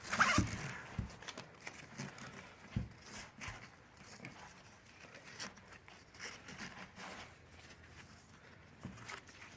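A webbing strap being pulled and threaded through the fittings of a rucksack frame: faint rustling and scraping with a few irregular light knocks, the strongest in the first few seconds.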